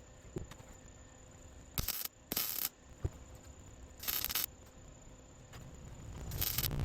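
Four short tack-weld bursts from a welder, each about half a second long, spaced unevenly over a faint steady background.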